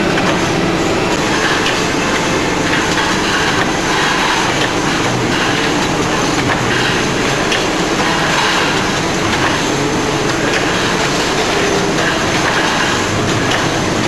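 Steady metallic rattling and clatter of a production line: steel seat-belt parts on a wire-mesh conveyor belt, with the machinery running underneath.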